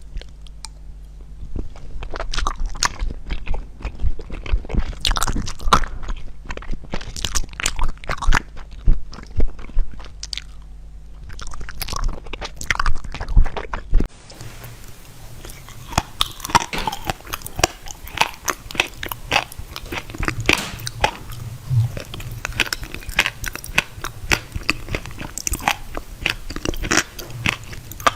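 Close-miked crunchy biting and chewing of fresh produce, with repeated crisp crunches. The recording changes abruptly about halfway through, as if at an edit.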